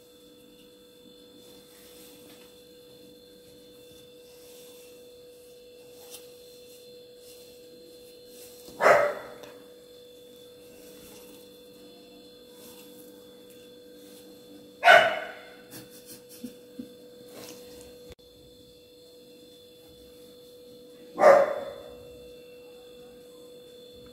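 A dog barking single barks, three times about six seconds apart, over a steady faint hum.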